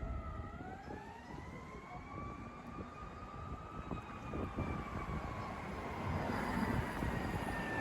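Fire truck siren rising in pitch for about three seconds, then slowly falling, over a low vehicle rumble.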